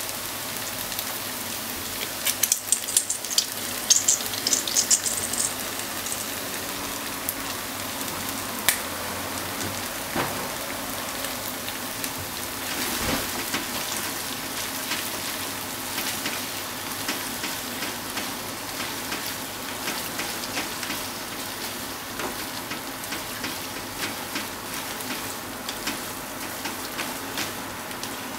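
Beef and sliced onions sizzling steadily in a hot frying pan, with wooden chopsticks ticking and scraping against the pan as the food is stirred. About three seconds in there is a loud burst of sharp crackling as ketchup goes into the pan.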